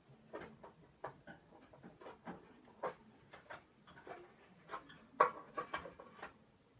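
Irregular light knocks and clicks, sometimes several a second, the loudest about five seconds in.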